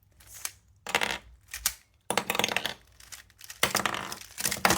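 A Moyu Weilong Ferrocore plastic speedcube being taken apart: its pieces click and snap out and clatter against each other in several quick bursts, the longest in the second half.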